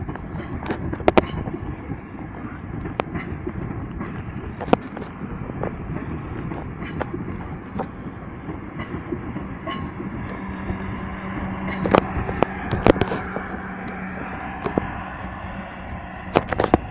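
Class 444 electric multiple unit pulling out, a steady rumble with scattered sharp clicks and knocks from the wheels over rail joints and points. A steady low hum sounds for a few seconds past the middle.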